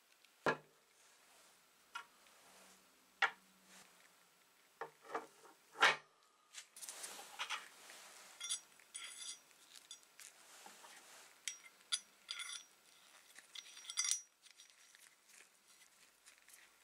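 Small brass blowtorch fittings and a steel open-end spanner clinking and knocking as they are handled: several sharp separate knocks in the first six seconds, then a run of small ringing metal clinks that dies down near the end.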